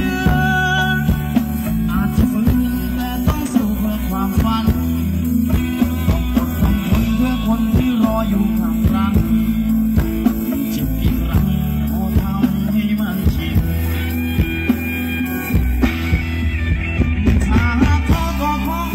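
Loud live band music: electric guitar over a heavy bass and a steady drum beat.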